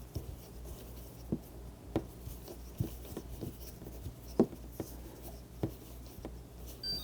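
Phillips screwdriver backing a screw out of a refrigerator door stop latch: irregular clicks and scrapes of the driver in the screw head, roughly one every half second to a second, over a low steady hum.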